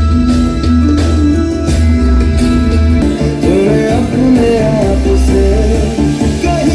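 A song with guitar and strong bass playing through a Sony SA-D100 4.1 home theatre system and its subwoofer; a singing voice comes in about three seconds in.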